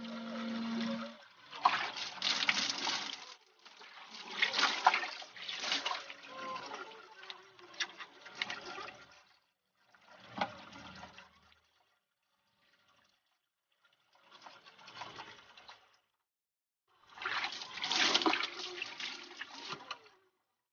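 Water splashing over a person bathing, in about six bursts of one to several seconds with quiet gaps between; the loudest come near the start and near the end.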